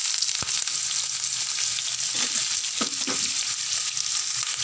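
Chopped onions and green chillies sizzling in hot oil in a frying pan: a steady hiss with a few light clicks.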